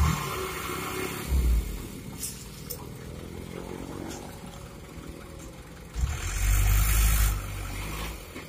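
Dump truck diesel engines running as the raised beds tip out loose fill soil, with a short louder rumble about a second and a half in and a longer, louder rumble with a rushing hiss around six to seven seconds in.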